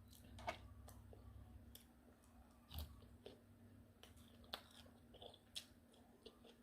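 Quiet chewing with scattered mouth clicks and smacks, about ten spread irregularly across a few seconds, over a faint steady hum.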